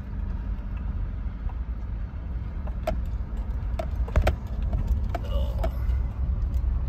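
Pickup truck driving: a steady low rumble of engine and tyres, with several sharp knocks and rattles between about three and six seconds in.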